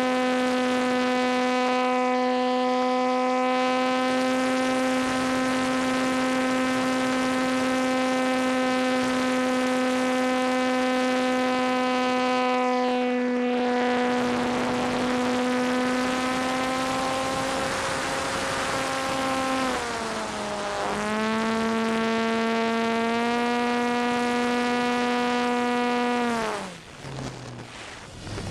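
RC model T-28 airplane's motor and propeller heard from on board, a steady high buzz at high throttle with wind noise rushing past. About two-thirds through the pitch dips briefly and comes back, and near the end the throttle is pulled back: the pitch falls steeply and the sound drops away.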